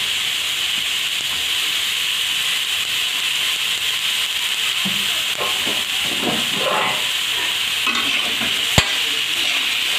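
Chopped bottle gourd frying in hot oil and spice paste in a metal kadai, a steady sizzle, with a spatula scraping and stirring through the pieces in the middle. One sharp knock near the end.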